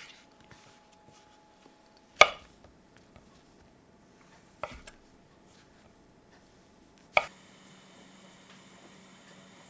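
Kitchen knife cutting shiitake mushrooms on a wooden cutting board: three separate knocks of the blade on the board, roughly two and a half seconds apart, the first the loudest. After the last cut, a faint steady hiss from the frying pan heating oil on the stove.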